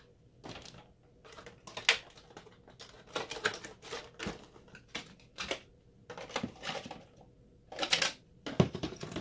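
Cardboard box and foam packaging tray being handled and pulled apart: a run of irregular clicks, rubs and light knocks, loudest near the end.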